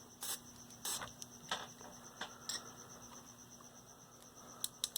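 A few short squirts of DeoxIT contact cleaner sprayed into a transistor radio's power switch. Near the end the switch is worked rapidly back and forth in a fast run of clicks, to clean its sticking contact.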